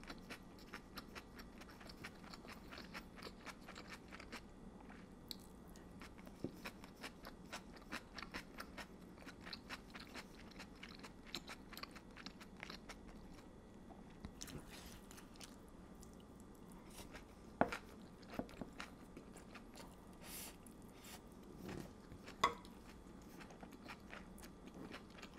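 Close-up mouth sounds of a person chewing red-wine-marinated chicken and stir-fried vegetables, with soft crunching and many small wet clicks. A couple of sharper clicks stand out in the second half.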